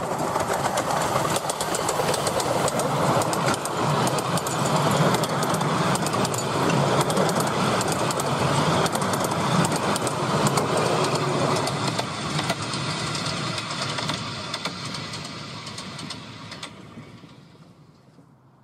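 A 10¼-inch gauge miniature steam locomotive and its carriages passing close by, with a dense run of sharp clicks and clatter. It swells as the train arrives, stays loud through the middle, then fades away over the last few seconds as the train moves off.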